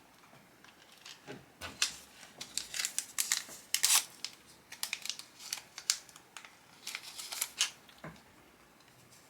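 A cleaning wipe rubbed across the smartphone's glass screen in irregular short strokes, with crinkling and scraping, busiest a few seconds in and stopping about a second before the end.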